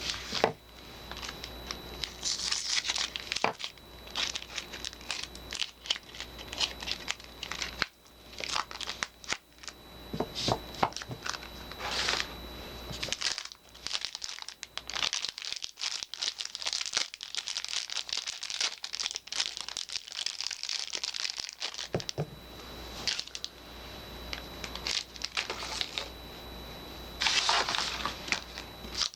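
Soap packaging being unwrapped by hand: wrapping crinkling and tearing in irregular handling bursts, with a lighter, sparser stretch through the middle.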